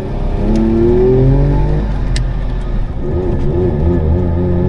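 Saab two-stroke engine heard from inside the car's cabin, revving up under acceleration with a rising pitch. It drops back about two seconds in, then climbs again.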